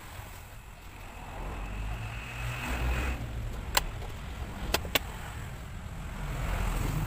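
Handling of plastic car dashboard trim over a low rumble, with three sharp plastic clicks around the middle, the second and third close together.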